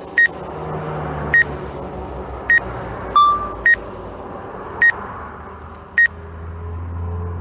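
Drone remote-control beeping: six short high electronic beeps about a second apart, with one different, lower beep about three seconds in, over a low steady hum. The beeps come as the drone flies an automated Asteroid QuickShot.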